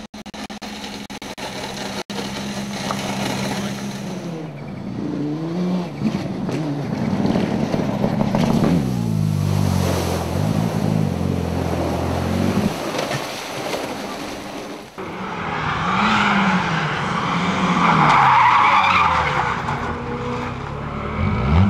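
Race car engines revving up and down and tyres skidding, with an abrupt cut to a new shot about fifteen seconds in.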